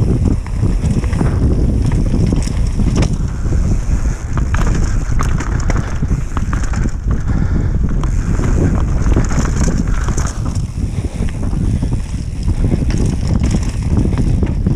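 Heavy wind rumble on an action camera's microphone as a mountain bike rolls fast down a dirt trail, its tyres running over the ground and the bike rattling and clicking over the bumps.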